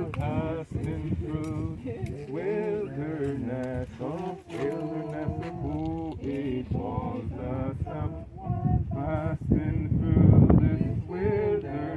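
A group of voices singing together, with held, wavering notes.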